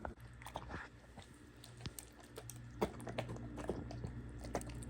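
Dishwasher running a wash cycle: a steady low hum with scattered clicks and ticks.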